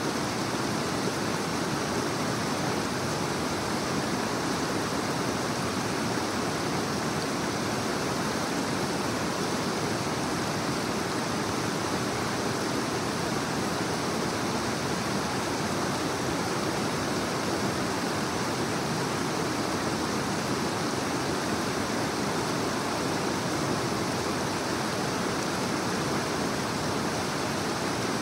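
Creek water rushing steadily over rocks: an even, unbroken white-water noise.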